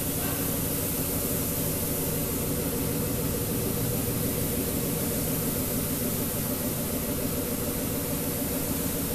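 Steady machine drone with several held low tones and an even hiss over it, unchanging throughout: paint-shop machinery running.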